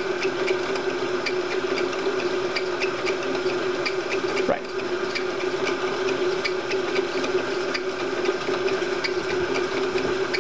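Milling machine spindle running at slow speed with a hole saw in the chuck, not yet cutting: a steady hum with a regular light ticking from the drive.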